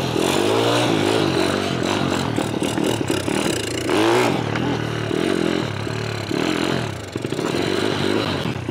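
A Honda Chaly mini bike's swapped-in 20 hp engine revving up and down unevenly while it is ridden. It runs poorly, which the owner puts down to a lemon engine with low compression (about 75 psi).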